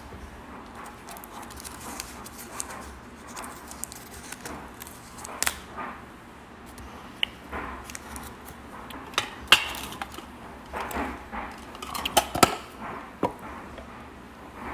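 Scattered light clicks, taps and clatters of small hard objects being handled, with a few sharper knocks about nine and a half and twelve and a half seconds in.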